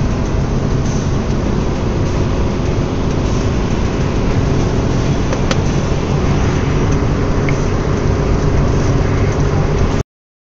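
Steady engine hum and road noise inside a moving vehicle's cabin, with a single short click about halfway through; the sound cuts off suddenly near the end.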